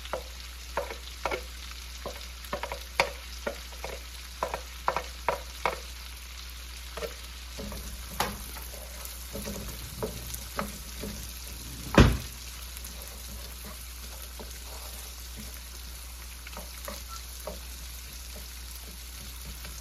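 Chopped red onion and garlic sizzling in oil in a wok while a wooden spatula stirs and scrapes them, with quick clatters of the spatula against the pan over the first several seconds. One loud knock stands out about twelve seconds in.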